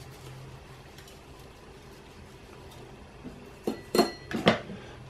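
Several sharp clinks with a brief high ring as a glass spice jar is picked up off the counter, near the end. Before that, only a faint steady hum.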